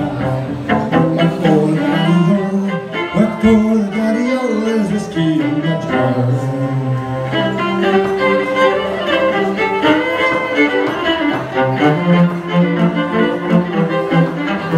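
Violin bowed in a flowing melody, with lower held notes sounding beneath it.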